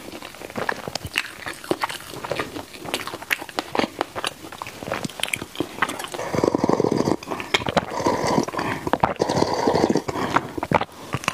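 Close-miked chewing of crisp-crusted, chewy baked mochi bread, with small wet clicks and crackles. About six seconds in, several loud gulping swallows of a drink from a glass mug take over, ending about a second before the end.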